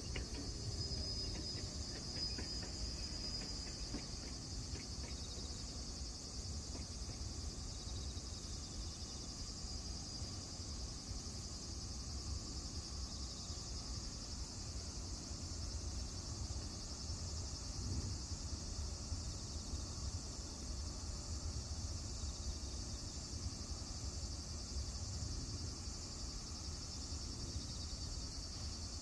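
A steady, high-pitched chorus of singing insects in long grass, with a low rumble underneath.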